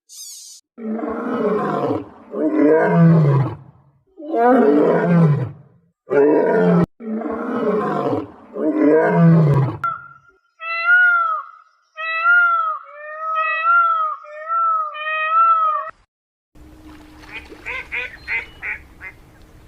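A series of farm animal calls: five loud, drawn-out calls that each fall in pitch, then a run of about seven short, high, arching calls repeated evenly, then rapid short calls near the end.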